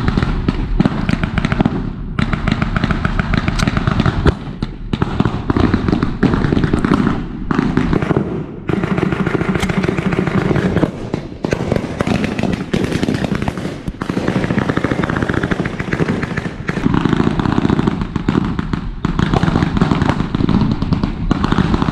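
Blank gunfire from reenactors' rifles and machine guns: many shots overlapping into a dense crackle, with brief lulls.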